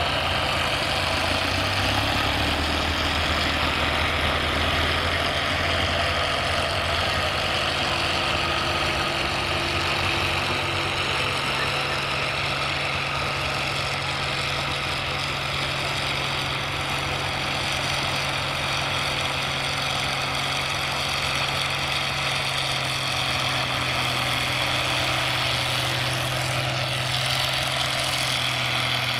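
Allis-Chalmers farm tractor's engine running steadily at high revs under load as it drags a weight-transfer pulling sled down the track.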